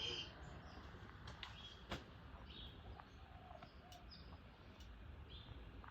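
A 1983 DEMC 1400 mm ceiling fan running quietly with a faint low hum, while small birds chirp in the background and a few faint clicks come through.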